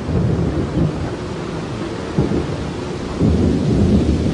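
Rainforest rain shower falling steadily while thunder rumbles, the rumble swelling a couple of times and loudest near the end.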